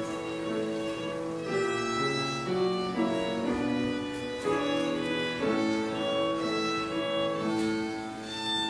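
Violin bowed in a slow melody of held notes, over a lower accompaniment that is most likely piano.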